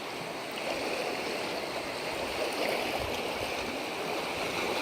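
Sea waves washing on the shore, a steady rushing wash that swells slightly near the end.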